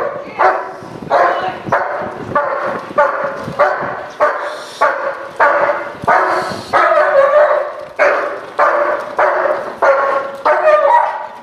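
German shepherd barking loudly and without a break, about two barks a second, at a decoy in a bite suit during protection training.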